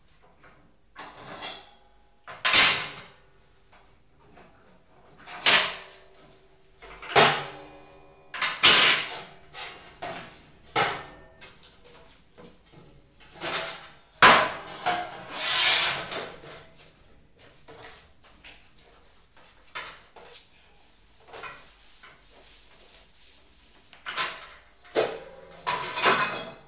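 Thin sheet metal being bent over a pipe and handled on a steel welding table: irregular clanks, knocks and scrapes of the sheet against the table and pipe, some ringing briefly, with quieter pauses between them.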